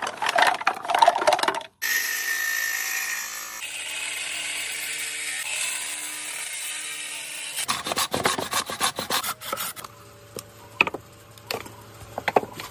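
Tools working buffalo horn into a spoon: quick scraping strokes, then a power tool running steadily for several seconds, then rapid scraping and tapping.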